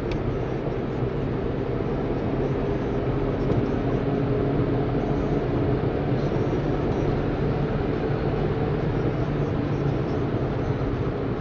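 Interior sound of a 2010 Audi A4 B8's 2.0 TDI four-cylinder diesel under hard acceleration at about 140–160 km/h. The engine gives a steady drone, mixed with wind and tyre noise in the cabin.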